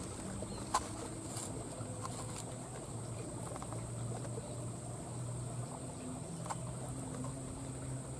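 Insects buzzing steadily at a high pitch over a low, wavering drone, with a sharp click under a second in and a fainter one about six and a half seconds in.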